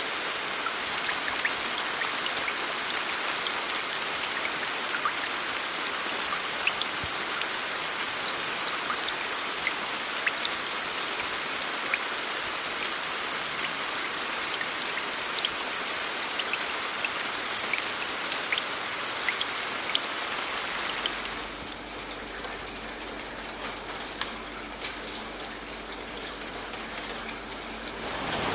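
Steady rain with many individual drops pattering sharply. About 21 s in, the rain turns quieter and a faint steady low hum comes in beneath it.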